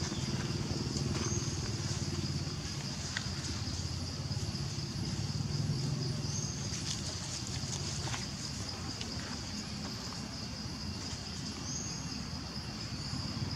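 Steady high-pitched insect drone over a low outdoor rumble, with a few faint short chirps now and then.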